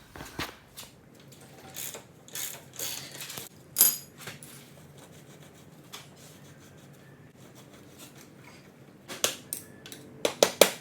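Ratchet wrench clicking and metal tools clanking in short spells, with a sharp clank a little under four seconds in and a quick run of clicks near the end: hand tools at work taking the rear wheel off a Yamaha TTR-125 dirt bike.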